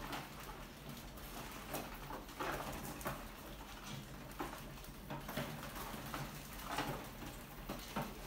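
Many rats scurrying and scrabbling over a wire-mesh lid, a wooden ramp and a glass tank: an irregular patter of claw scratches and light taps.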